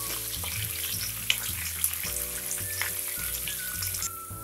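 Garlic, green chillies, curry leaves and spices sizzling in hot oil in a nonstick pan over a low flame, with scattered small crackles, while a spatula stirs them through the oil.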